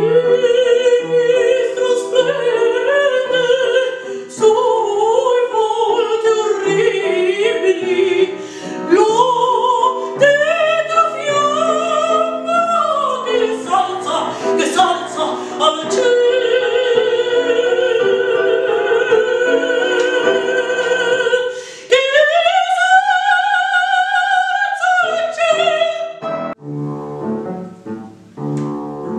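Mezzo-soprano singing a classical art song with wide vibrato, accompanied by an upright piano. About 22 seconds in she holds one long note, and near the end the piano plays on alone, more softly.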